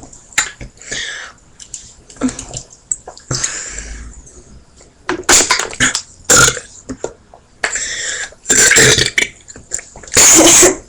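A woman burping over and over, about eight burps of varying length with short pauses between, the longest and loudest near the end, after chugging a can of carbonated soda.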